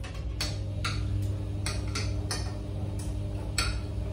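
Spoons and forks clicking and scraping against plates as two people eat, a short sharp click about every half second over a steady low hum.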